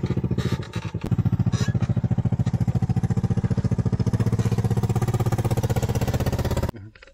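Honda Foreman quad bike's single-cylinder four-stroke engine running steadily as it drives across grass, dipping briefly about a second in. The engine sound stops abruptly near the end.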